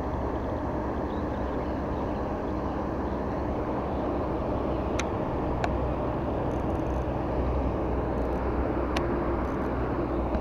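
Steady low rumbling background noise, with three sharp clicks in the second half.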